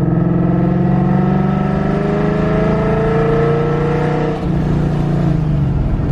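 Supercharged Ford Coyote 5.0 V8 in a Mustang accelerating, its pitch rising slowly, then the throttle lifts about four seconds in and the engine note drops and falls away.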